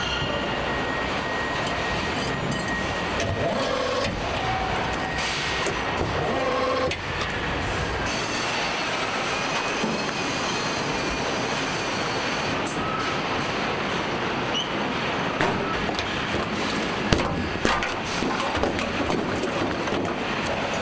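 Steady truck assembly-line noise: a constant machinery hum and hiss with scattered clicks and clanks of tools and parts. The low rumble drops away about eight seconds in, and a few sharper knocks come near the end.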